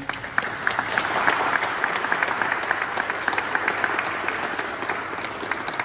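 A small group applauding, many hand claps together, swelling in the first second and tapering slightly toward the end.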